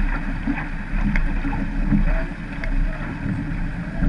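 Wind buffeting the microphone of a camera mounted on a rowed surf boat, over the wash of water and surf around the hull. A heavy, uneven low rumble, with a few faint clicks.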